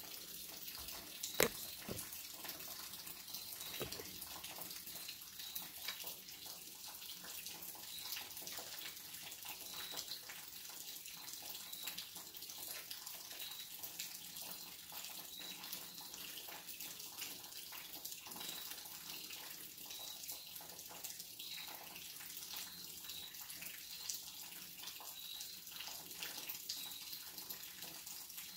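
Steady rain from a thunderstorm: an even hiss thick with small drip ticks, with one sharp tap about a second and a half in. Short high chirps recur every second or two.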